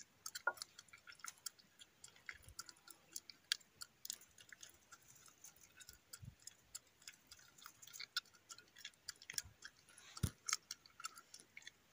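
Irregular faint clicks and ticks, with a few soft low knocks, the strongest about ten seconds in.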